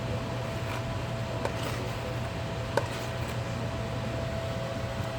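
Steady low hum of a running household appliance, with a faint steady tone above it and a couple of light clicks.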